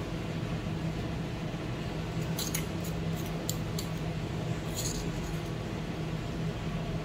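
A few light clicks and taps from a utensil against a stainless steel bowl as pounded garlic is added onto sliced beef, clustered from a couple of seconds in to about five seconds in, over a steady low hum.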